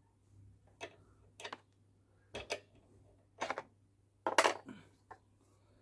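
Scattered sharp metal clicks and light clinks, six or so at uneven spacing with the loudest cluster about four seconds in, from hand tools and cable fittings being handled on a petrol lawnmower's drive-cable adjuster.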